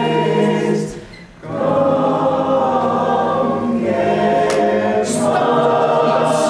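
Mixed youth choir singing a cappella in sustained chords, with a short pause about a second in before the voices come back in.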